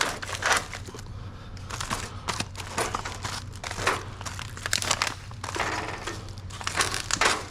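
Plastic packaging crinkling and rustling in repeated short bursts as packaged food items are handled, over a steady low hum.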